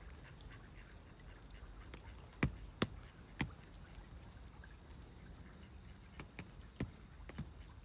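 Rain falling on an umbrella: a steady hiss, with heavy single drops striking the canopy sharply, three close together about two and a half to three and a half seconds in and several weaker ones near the end.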